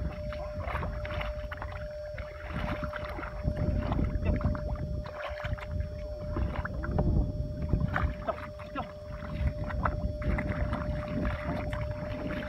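Legs wading through shallow, thick muddy water, with irregular sloshing and splashing and the wet squelch of feet pulling out of mud.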